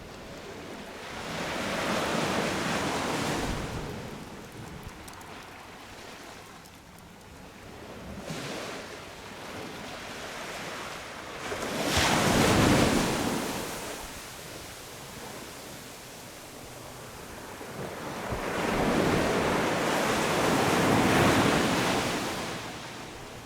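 Sea waves breaking on a beach in three surges, each swelling and washing out over a few seconds, the one about halfway through the sharpest, with some wind on the microphone.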